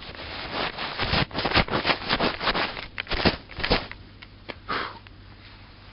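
Boots crunching and scraping through deep snow in a quick, irregular run of steps that stops about five seconds in.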